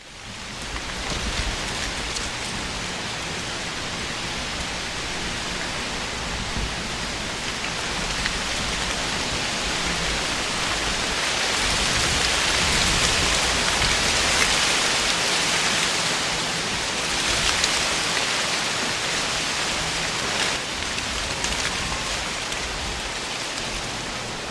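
Wind rustling through tree leaves: a steady hiss that cuts in abruptly, swells about halfway through and eases again, with a low rumble of wind on the microphone.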